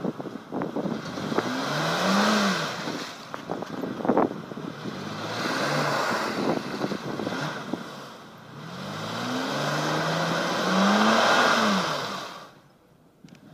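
Mercedes-Benz M-Class SUV's engine revved hard twice, its pitch rising and then falling each time, while its wheels spin and churn in deep mud: the vehicle is stuck and trying to drive free.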